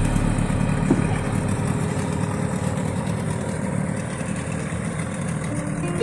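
Longboat outboard motor running steadily, a low drone. A few musical notes come in near the end.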